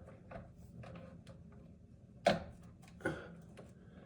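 Small plastic clicks and taps from a water filter fitting being handled, with two sharper snaps about two and three seconds in, as a locking clip is pushed onto it.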